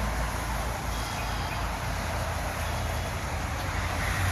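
Steady rush of distant highway traffic, a continuous low rumble with no single vehicle standing out.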